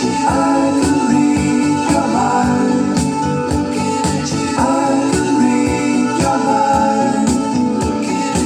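A song with singing and a steady beat, played through a pair of Sony SS-U4030 two-way eight-inch speakers under test.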